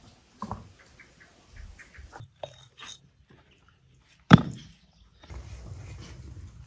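Soft clicks of a small knife cutting through figs, then stone blocks being laid into a pit in the ground: one sharp knock of stone on stone about four seconds in, the loudest sound, followed by scraping and shuffling.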